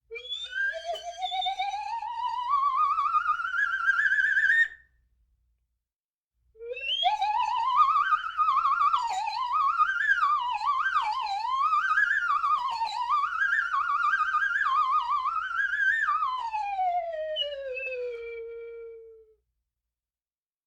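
Slide whistle with a shaky warble, in two passages. First comes a slow rising glide. After a pause of about two seconds, a longer passage slides up and down erratically, then falls slowly and fades out.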